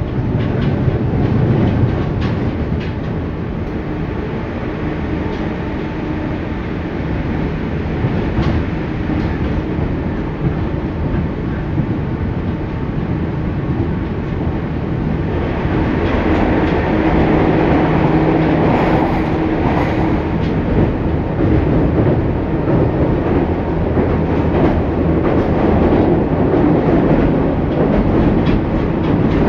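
JR 201 series chopper-controlled electric train running on the line, heard from on board: a steady rumble of wheels on rail with clacks over rail joints. About halfway through the running noise grows louder and brighter and a steady hum joins it.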